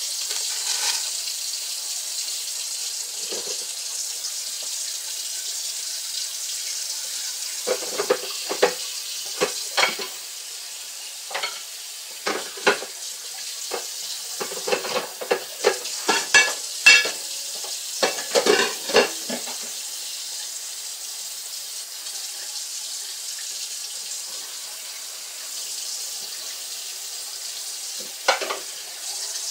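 Cold tap water running steadily into a kitchen sink over frozen chicken thighs. A cluster of irregular knocks and clatters, from handling in the sink, comes from about 8 to 19 seconds in, with one more near the end.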